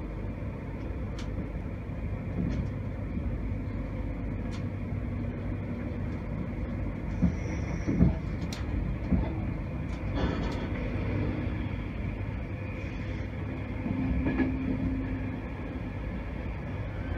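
Interior of a Mark 4 passenger coach behind a Class 91 electric locomotive, running on the line: a steady low rumble and hiss of wheels on rail, with a few sharp knocks and rattles about halfway through.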